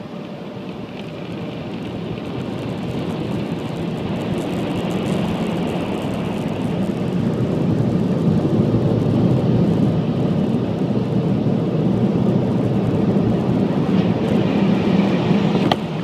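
Car wash machinery running: a steady rushing noise that builds over about eight seconds, holds loud, then drops off abruptly near the end.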